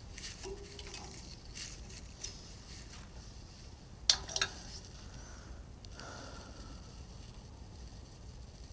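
Quiet handling of a steel bolt and small tapped steel plate: faint scraping and light metal clicks, with two sharper clicks close together about four seconds in.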